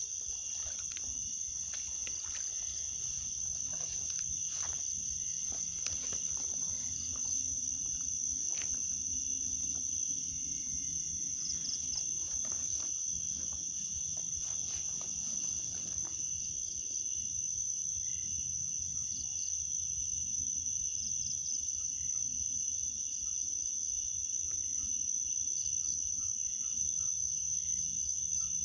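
Insects, crickets among them, trilling in a steady high-pitched chorus. Scattered short clicks and rustles fall in the first half.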